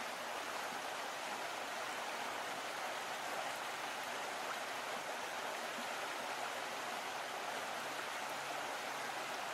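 Steady, even rushing noise with no separate sounds standing out.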